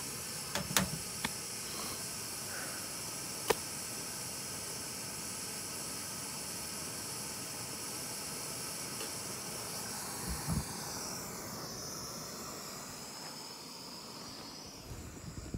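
MSR WindBurner canister stove burning with a steady hiss as it heats water. A few light clicks in the first few seconds and a low thump about ten seconds in, and the hiss fades over the last few seconds.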